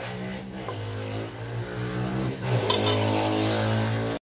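A steady low mechanical hum that steps in pitch a couple of times, with a light clink or two of a steel ladle against the aluminium pressure cooker pot.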